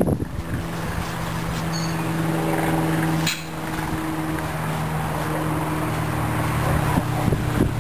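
A steady engine-like motor hum, with a single sharp click a little over three seconds in.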